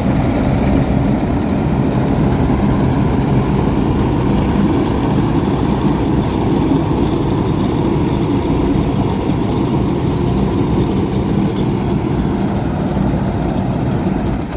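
Heavy diesel engine running steadily close by, cutting off suddenly at the end.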